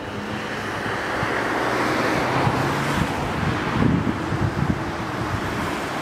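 Wind rumbling on the microphone over the rushing sound of an E57 electromechanical siren sounding in a test alarm, which grows louder over the first couple of seconds.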